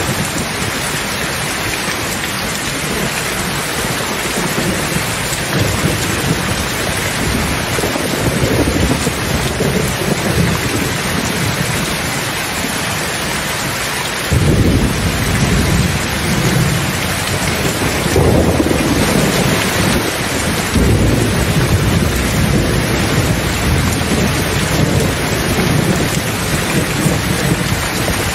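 Steady rain falling with thunder rumbling low. A louder roll of thunder comes in suddenly about halfway through and keeps rumbling, swelling again a few seconds later.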